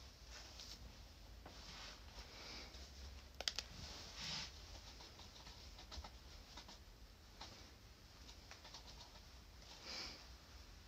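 Faint rustling and scratching of hands working long hair close to the microphone, with a couple of light clicks about three and a half seconds in.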